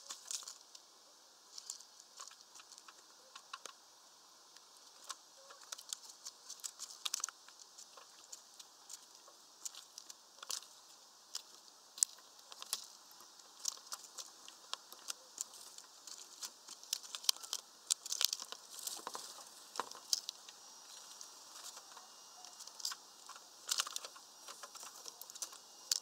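Greenfinches pecking at a mesh bag of peanuts and working at seed on wooden perches: a run of irregular, sharp, high clicks and crackles, busier in the second half.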